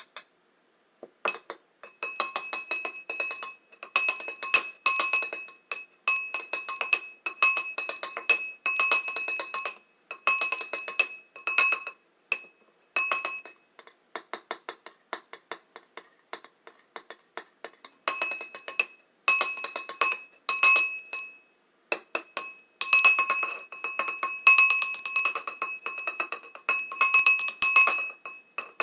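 A bowl tapped rapidly over and over, each tap ringing with the same few clear tones, broken by a short pause near the start and a longer one midway.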